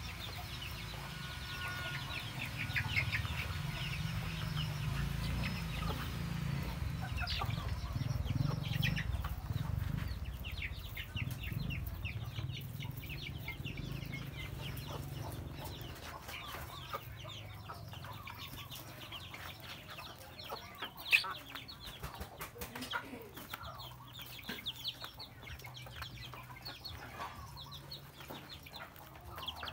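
Young chickens clucking and peeping while pecking at chopped greens in a tyre feeder, with many short, sharp pecking taps. A low rumble runs underneath for about the first third.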